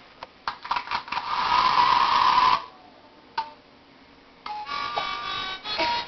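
A child's toy playing a simple electronic tune of steady notes, starting about four and a half seconds in. Before it comes a louder noisy sound lasting about two seconds.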